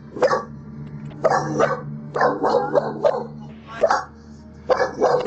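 A dog barking repeatedly in short, sharp barks at uneven intervals.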